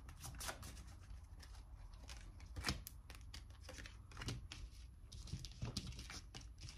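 Tarot cards being shuffled and handled: a faint, irregular run of crisp flicks and taps, with one louder snap about two and a half seconds in.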